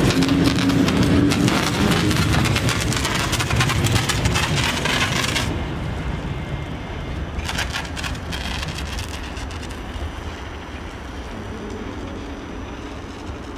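EP07 electric locomotive heard close up: a loud crackling clatter that cuts off about five and a half seconds in, leaving a quieter low hum, with a short burst of crackling again around eight seconds in.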